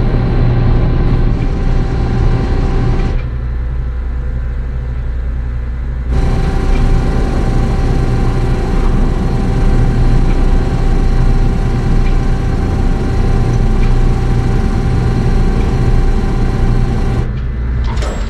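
Outdoor tornado warning siren sounding a steady tone over a low rumble. Its higher tones fade out for about three seconds a few seconds in, then return.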